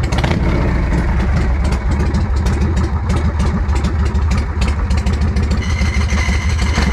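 1981 Harley-Davidson Shovelhead V-twin running steadily with a lumpy, uneven beat. The engine is still cold, with its idle set a little high.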